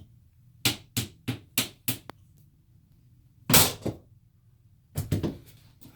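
A run of five quick knocks, about three a second, then one louder, longer thump about midway, and a few more quick knocks near the end.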